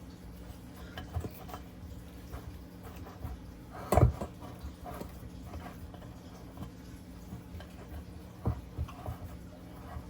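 Hands pressing dough into a muffin pan: scattered soft taps and rubbing, with a sharp knock of the pan about four seconds in and a lighter one near eight and a half seconds.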